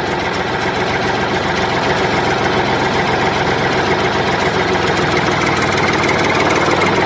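Tractor engine running steadily at idle, a dense, unbroken mechanical din.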